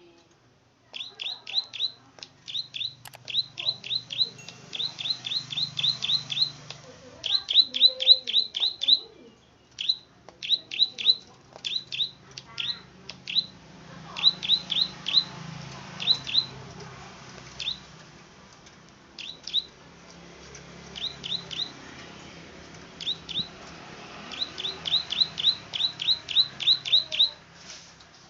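Plain prinia (prenjak padi) singing: runs of short, sharp, down-slurred clicking notes, several a second, broken by brief pauses.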